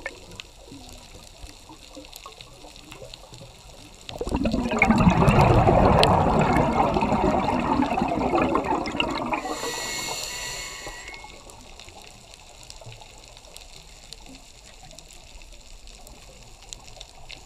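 Scuba diver's breathing heard underwater: a loud gurgling rush of exhaled bubbles from the regulator starting suddenly about four seconds in and fading over several seconds, with a brief high hiss near the middle as the next breath is drawn. Before and after, only a faint crackling background.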